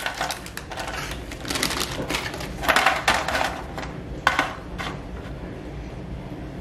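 Pieces of cut sweet potato fries tipped onto a baking tray, clattering in a few bursts over the first three seconds or so, then a couple of single pieces knocking down on the tray, about four and five seconds in.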